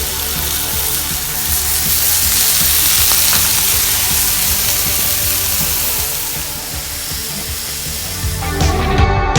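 Burgers and sausages sizzling on a hot barbecue: a steady hiss of frying meat over background music. A little after eight seconds the sizzle drops away and rock music with guitar takes over.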